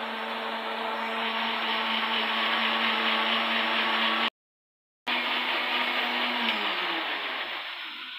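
Electric blender grinding a mint, green chilli and garlic chutney: a steady motor hum with the rush of the chopped mix. It breaks off to silence for under a second just past the middle, then resumes and winds down, falling in pitch, near the end.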